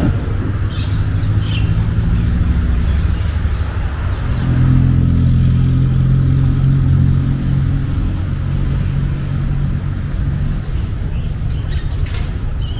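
Motor vehicle engine running close by: a steady low rumble that swells about four seconds in, with a few faint bird chirps.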